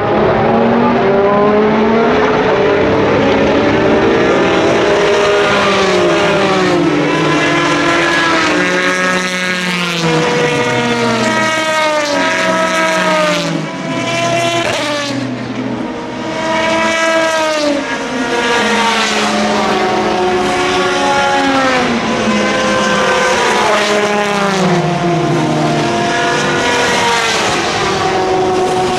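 Several racing cars' engines at speed, overlapping, each revving up and dropping back through gear changes again and again, one car after another.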